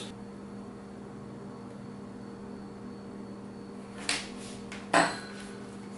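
Quiet room tone: a steady low electrical hum with a faint high whine. About four and five seconds in come two brief soft handling noises.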